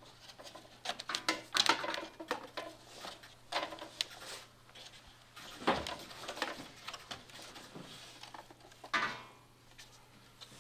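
Light wooden clicks, taps and rubbing as a thin 5x5 mm lime-wood strip is handled and laid into a wooden rib jig, with a few sharper knocks among them.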